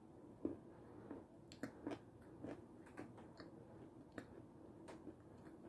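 Faint close-up chewing of soft coconut-coated Raffaello-style sweets: irregular small wet mouth clicks and crunches, a dozen or so, the loudest about half a second in.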